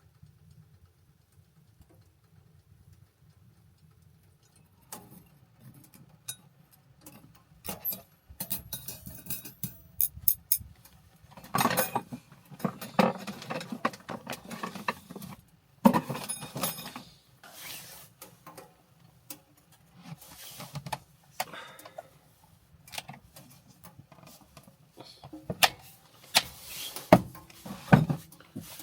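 Irregular knocks, clicks and clatter of objects being handled, starting about five seconds in, over a low steady hum.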